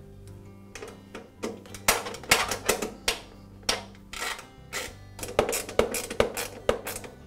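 Spring-loaded plastic mulch door on a Husqvarna mower deck being worked by hand, clacking against the deck again and again: a string of irregular sharp plastic clicks and snaps, some in quick pairs.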